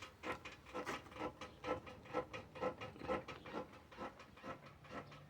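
Front suspension creaking and rubbing in an even rhythm, about two creaks a second, as the wheel is worked back and forth; a dry, worn lower ball joint, which the mechanic takes for the source.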